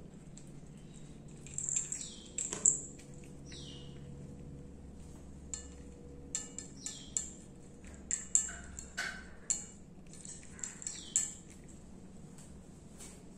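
Cat eating canned wet food from a plate: a scattered run of wet clicks and smacks from chewing and licking, the sharpest about two and a half seconds in. A few short, high chirps that fall in pitch come in now and then behind it.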